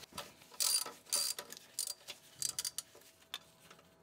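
Ratchet wrench clicking in a few short bursts of quick ticks over about two seconds, as it loosens the drain bolt on an automatic transmission's torque converter.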